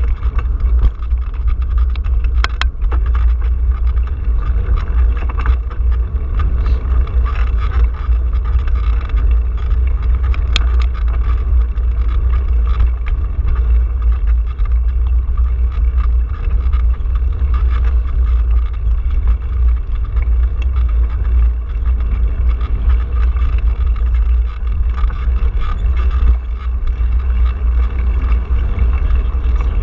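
Steady low rumble of wind and road vibration on a handlebar-mounted camera while riding a bicycle along a paved street, with a few sharp clicks.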